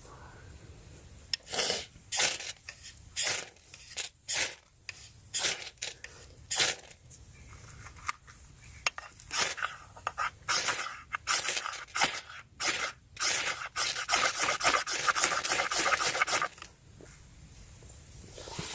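Ferro rod struck repeatedly to throw sparks onto damp tinder: single rasping scrapes at uneven intervals, then a quick run of rapid strokes near the end.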